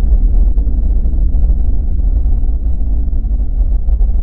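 Loud, steady deep rumble of a produced logo sound effect, a bass drone with a low hum above it.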